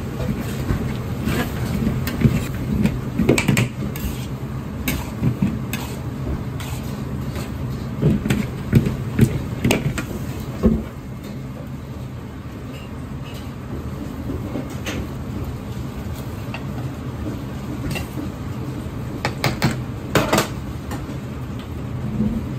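Steady low rumble of a commercial wok range under a steel wok of simmering spaghetti. Bursts of knocks and scrapes come from utensils stirring and tossing the noodles against the wok, frequent in the first ten seconds and again near the end.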